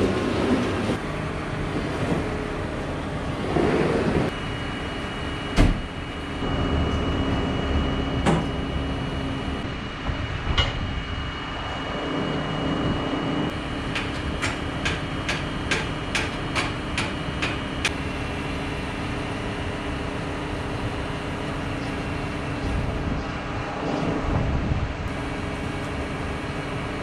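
John Deere tractor's diesel engine running with a steady low hum. A high whine rises over it for several seconds, then a run of even clicks follows, with an occasional knock.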